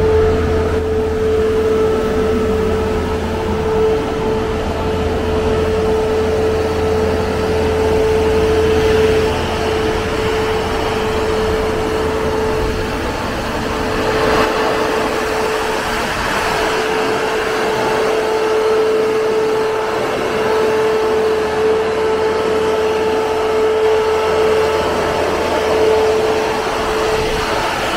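Truck-mounted concrete boom pump running at a steady speed: a constant mechanical drone with one steady mid-pitched hum, and a lower rumble that drops away about halfway through.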